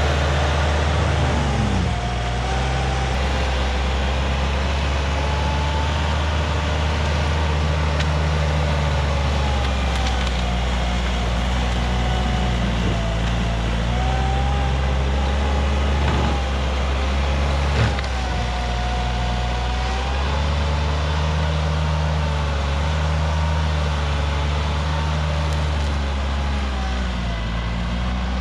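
An engine running steadily with a low, even drone whose pitch shifts slightly now and then.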